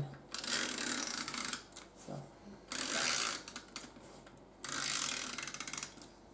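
Stampin' Up Snail adhesive tape runner being drawn across paper in three strokes, each a rasping, finely ticking whir as the glue tape feeds off the roll.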